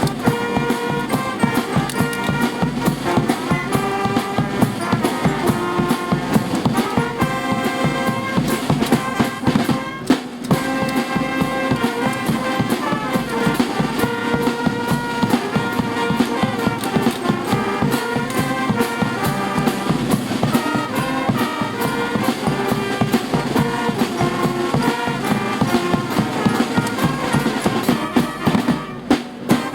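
Brass band music playing a march-like tune over a steady drum beat, with a brief break about ten seconds in. Near the end, separate drum strokes stand out.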